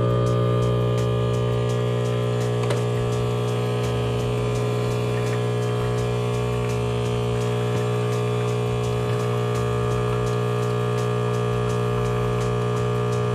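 Rancilio espresso machine's pump humming steadily as it pulls an espresso shot through the portafilter.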